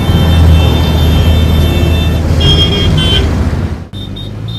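Road traffic in a jam: a loud, steady low engine rumble with car horns sounding, strongest between about two and a half and three seconds in. The traffic noise drops away suddenly about four seconds in.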